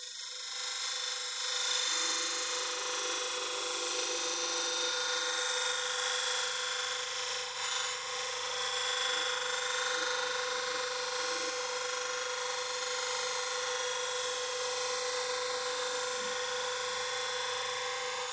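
Dick bench grinder running steadily with a cleaver's edge held against its spinning felt polishing wheel: a constant motor whine with an even hiss over it.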